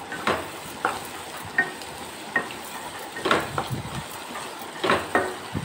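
Wooden spatula stirring chopped snake gourd in a hot oiled kadai, over a steady frying sizzle, with about seven sharp scrapes and knocks against the pan. This is the vegetables being sautéed with salt.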